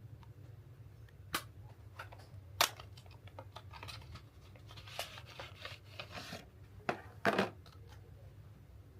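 Makeup packaging being handled by hand: scattered sharp clicks and taps, a stretch of rustling in the middle, and a louder crackle near the end, over a steady low hum.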